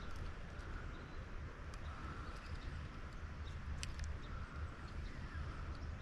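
Quiet outdoor ambience: a low rumble like wind or water, a faint sound that swells and fades every second or two, and scattered light clicks.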